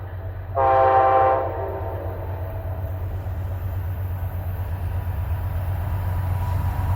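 Amtrak locomotive horn giving one short blast of about a second, about half a second in. After it the train's low rumble grows steadily louder as it approaches.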